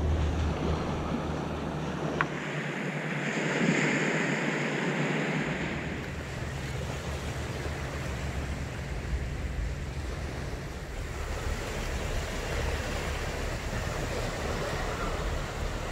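Small waves washing onto a sandy beach, with wind rumbling on the microphone; the wash swells louder for a couple of seconds around four seconds in.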